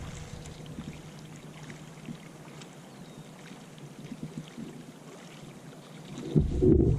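Faint creek water trickling and lapping, with small scattered ticks and splashes. About six seconds in, a loud low rumbling noise starts.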